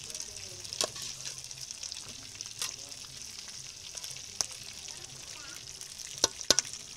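A pot of leafy greens with garden eggs sizzling steadily in an aluminium pot while a metal spoon stirs it, knocking sharply against the pot's side about five times, twice in quick succession near the end.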